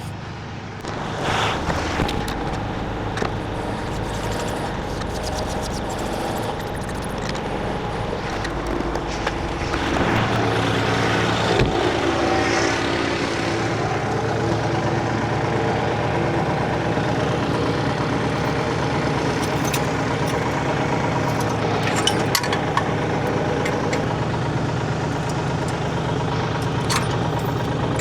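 Kioti compact tractor's diesel engine running. About ten seconds in, it rises in speed and gets a little louder and stays there, with scattered clicks and knocks over it.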